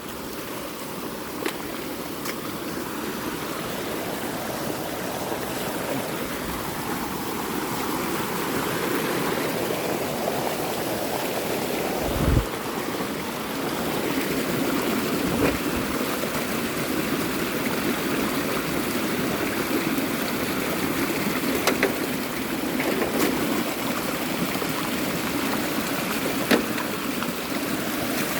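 Storm runoff water rushing steadily, with a few short knocks, one low thump about twelve seconds in.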